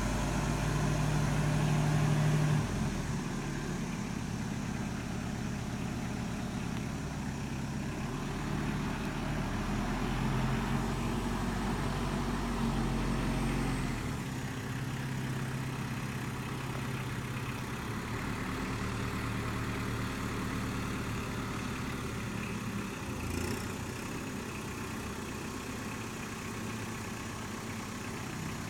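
Kubota M59 tractor-loader-backhoe's diesel engine running steadily, its speed and load shifting a few times as the machine works.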